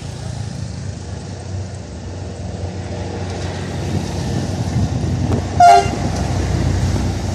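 Approaching diesel locomotive whose low rumble grows louder, with one short, loud horn toot about five and a half seconds in.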